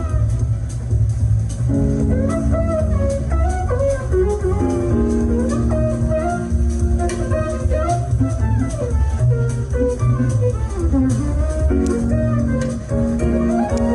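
Instrumental music: held chords over a deep, steady bass, with a moving melody line and frequent short percussive hits.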